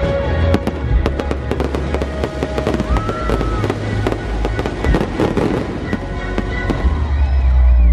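Fireworks bursting overhead in a dense volley of sharp bangs and crackles, thickest in the middle, over show music with a heavy bass line.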